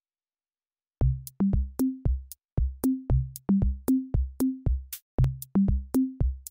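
Background music: an electronic drum-machine beat with a bouncy, stepping bass line and crisp high ticks, starting about a second in after silence.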